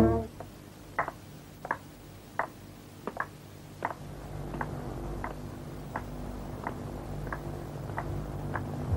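Footsteps in a slow, even walk, about three steps every two seconds, growing fainter after a few seconds, over a low steady hum.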